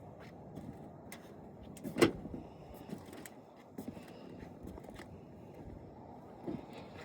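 A sharp knock about two seconds in, then a few lighter clicks and knocks, over a steady low rumble of wind or handling noise.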